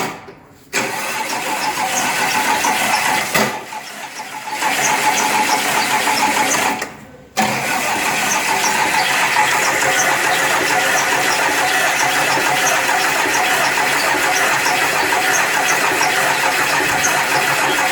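Freshly overhauled MT 86 engine starting up: it fires in a short burst, runs unevenly and drops away twice, then from about seven and a half seconds in runs steadily.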